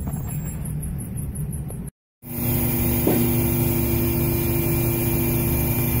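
Low road noise inside the cab of a 2019 Ford F-150 on the move. About two seconds in it cuts off briefly, then a vehicle hoist's motor runs with a steady hum as the truck is raised.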